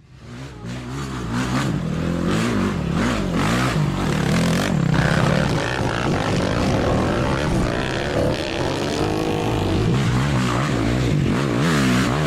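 Quad bike (ATV) engine running and being revved, its pitch rising and falling over and over as the throttle is worked. It fades in over the first second or two.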